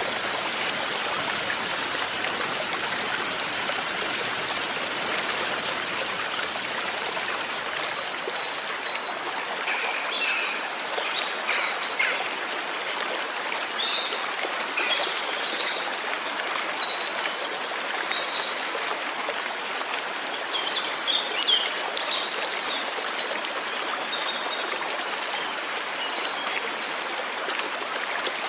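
Steady hiss of light rain, with birds chirping and calling from about eight seconds in.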